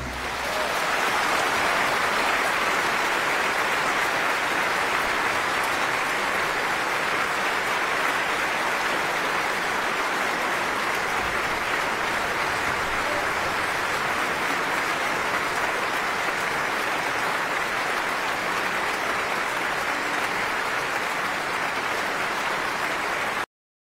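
Audience applauding, a steady dense clapping that holds at an even level and cuts off suddenly just before the end.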